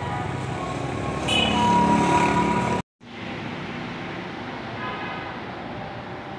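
Street traffic noise with a vehicle horn held for about a second and a half partway through. The sound then cuts out for a moment and a quieter steady background noise follows.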